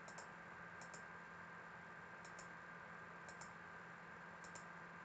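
Computer mouse clicking faintly, a quick double tick of button press and release repeated about every second, as pen-tool mask points are placed one by one. Otherwise near silence.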